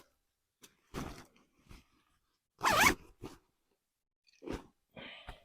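Camping kit being handled and packed in a rucksack: scattered short rustles and knocks, and a zip pulled once about three seconds in, the loudest sound.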